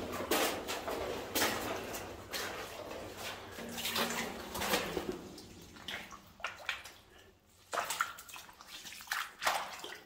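Footsteps splashing and sloshing through shallow water over a stony mine-tunnel floor, in irregular steps with a short lull past the middle.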